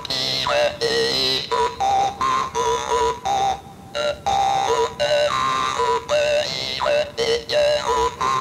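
Music: a slow song with a sung melody of long, wavering held notes.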